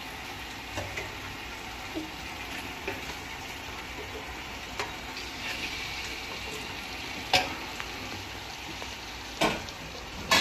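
Chicken pieces sizzling as they cook in hot oil and masala in a large metal pot, a steady hiss. A few sharp knocks against the pot come in the second half.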